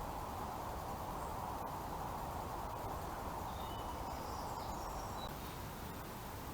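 Steady outdoor background noise, with a few faint, short, high bird chirps about halfway through.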